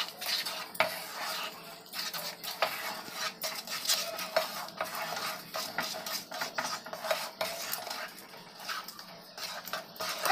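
A spatula scraping and folding a thick cashew-and-sugar-syrup dough around a non-stick pan, with irregular knocks of the spatula against the pan.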